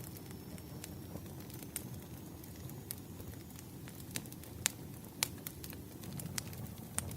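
Campfire burning: a steady low rush of flames with sharp wood pops and crackles scattered irregularly through it, the loudest pops a little under five seconds in.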